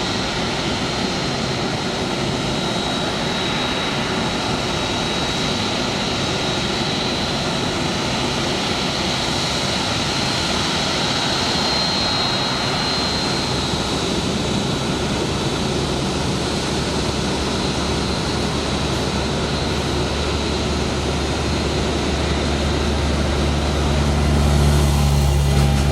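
Jet airliner engines running at the apron: a steady rushing noise with a high whine that fades about halfway through. Near the end a deep rumble builds up.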